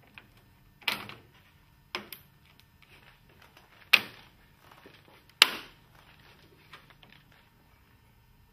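Steel parts of a ROTO NT tilt-and-turn window fitting clicking and knocking against a PVC sash as they are pressed and slid into its groove. Four sharp clicks come a second or two apart, with lighter ticks between.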